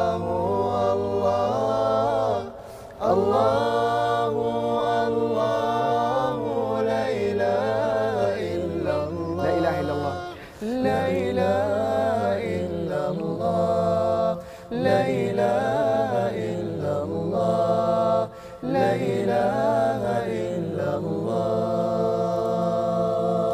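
Men's voices singing an a cappella nasheed in layered harmony: drawn-out melodic lines over a held low bass part, in phrases broken by short pauses for breath.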